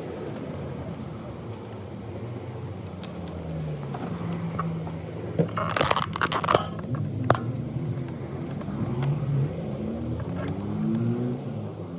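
Sandpaper scraping by hand over car paintwork, keying up the lacquer around a filled rust repair. A cluster of sharp clicks and knocks comes about halfway through, and a vehicle engine hums underneath, its pitch rising and falling near the end.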